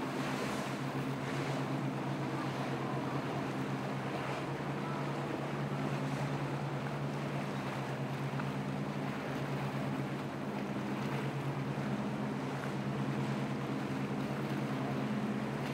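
Steady low engine drone of a large cabin cruiser running through rough inlet waves, over the rushing of spray and breaking water and some wind.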